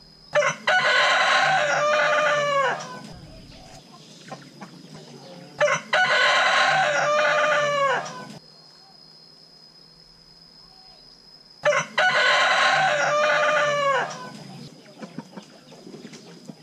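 Rooster crowing three times, about six seconds apart. Each crow lasts about two and a half seconds and drops in pitch at the end.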